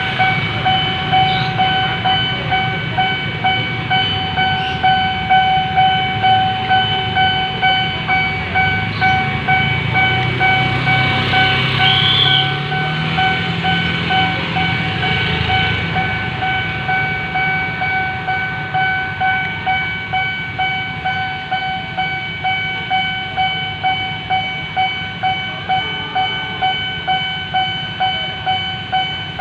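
Railway level-crossing warning siren sounding a loud, steady-pitched tone that pulses about twice a second. A train passes in the middle, its low running sound swelling from about eight seconds in and fading by about sixteen.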